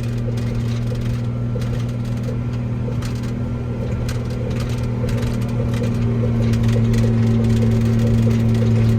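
Tractor engine running steadily at full throttle to drive a silage bagger, a constant heavy hum with faint clicks over it, getting a little louder about halfway through.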